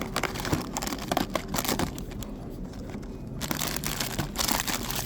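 Snack box and its wrapping being opened by hand: a run of small crackles, scrapes and crinkles of packaging, easing off in the middle, then a denser rustle near the end.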